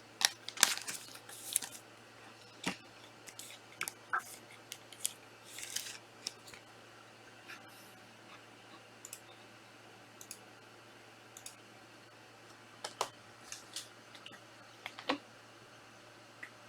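Trading cards and packaging handled on a table: scattered light clicks, taps and short sliding scrapes, busier in the first few seconds and sparser after, over a faint steady hum.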